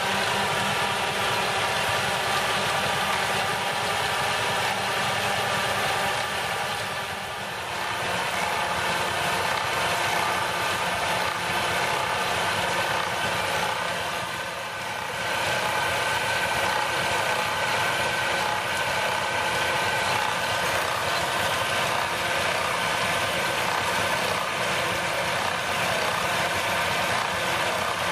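Vintage flat-belt-driven woodworking machine running steadily, its cutter working a length of timber with a chain-and-sprocket feed, a constant mechanical drone and rattle. The noise eases briefly twice, about seven seconds in and again about halfway through.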